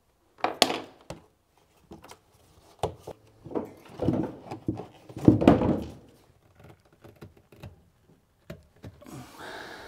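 Irregular knocks, clunks and rubbing as rubber rudder-fitting parts are worked loose and pulled out of a hole in a fibreglass cockpit. The handling noises come thickest about halfway through, and a soft hiss follows near the end.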